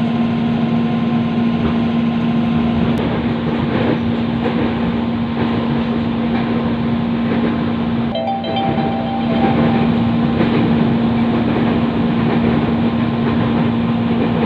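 Inside an electric commuter train car while it runs between stations: a steady rumble of wheels on the track under a constant low hum. About eight seconds in, a brief higher whine joins for a second or two.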